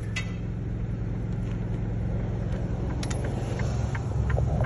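Idling truck engine with a steady low hum, swelling into a heavier rumble about four seconds in.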